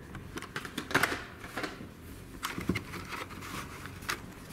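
Plastic blister packs and cardboard backing cards of carded die-cast cars rustling and clicking as they are handled and pulled from a cardboard shipping case. The clicks come irregularly, the sharpest about a second in.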